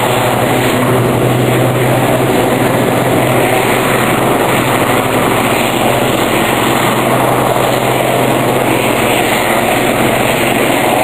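Two Westland Lynx naval helicopters flying past, a steady, loud mix of rotor and turbine engine noise.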